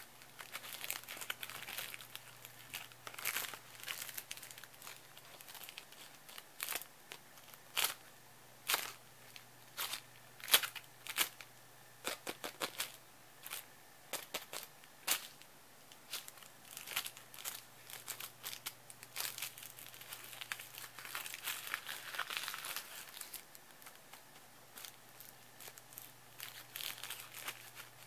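Cellophane crinkling: irregular sharp crackles, with the loudest a little over a third of the way in.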